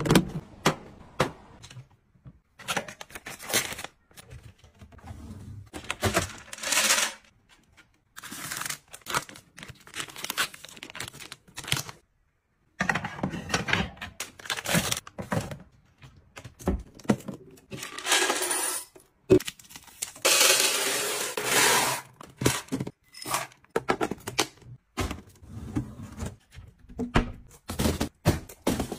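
Close-up handling sounds of packaging and small items: crinkling and tearing of wrappers, with many small clicks, taps and knocks, and a longer stretch of crinkling about two-thirds of the way through.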